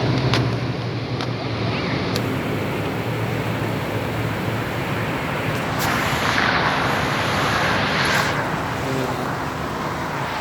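Boeing 777-300ER's GE90 jet engines, a steady loud rushing roar with a low rumble, swelling in hiss about six seconds in and easing after eight.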